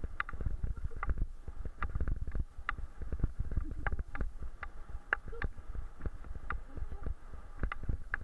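Bicycle rolling fast over a bumpy grass track, with a low rumble from the bumps and irregular sharp clicks and rattles from the bike.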